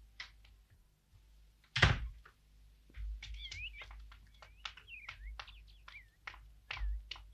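A door shutting with a single heavy thud a little under two seconds in, then birds chirping and twittering over a low outdoor background.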